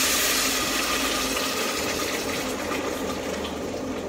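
Steady rushing of running water, fading slowly away.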